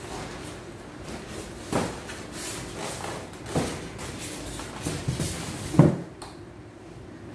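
Packing being handled: plastic wrap rustling and items knocking against a styrofoam box, with three sharper knocks, the loudest about six seconds in.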